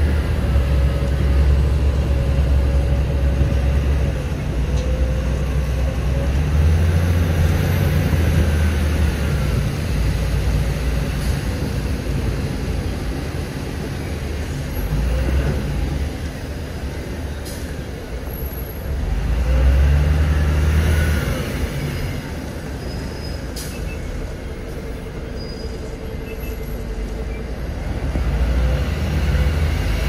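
City bus engine and drivetrain heard from inside the passenger cabin: a steady low rumble that swells and eases as the bus accelerates and slows. It rises to a louder surge about twenty seconds in.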